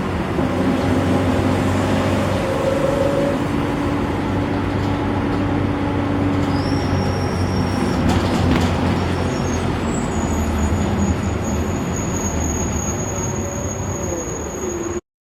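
Mercedes diesel engine of an Optare Solo bus running steadily under way, with a high turbo whistle that comes in about halfway through, steps up in pitch and holds. Near the end a lower whine dips and rises again, and the sound drops out for a moment at the very end.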